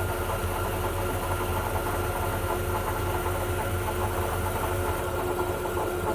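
Grob 4V-36 vertical bandsaw running free with no cut, its motor, drive and blade giving a steady hum with a few held tones. It is running in its low speed range, at about 420 feet per minute.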